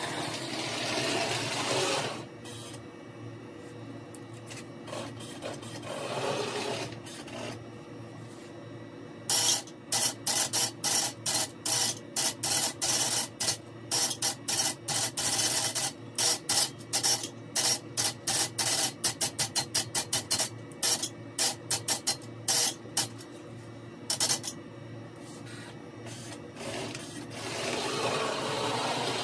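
Postwar Lionel O-gauge toy log train running on tubular track, sped up to double speed. A steady motor hum runs throughout. For much of the middle it is joined by quick, even clicking, the sound of the cars' wheels clattering over rail joints as the train passes close by.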